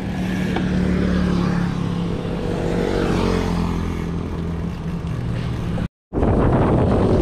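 A motor vehicle's engine running close by as a steady low hum, its pitch sliding up and down around the middle as it passes or changes speed. The sound drops out for a moment near the end, then comes back as wind rushing on the microphone.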